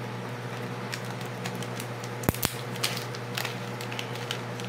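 A small packet of fishing swivels being handled and torn open by hand: crinkling and light clicking, with two sharper snaps a little past halfway.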